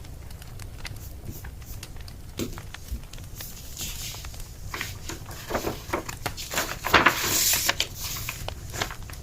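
Wood fire crackling with scattered sharp pops, and a louder flurry of rustling and knocks about five to eight seconds in.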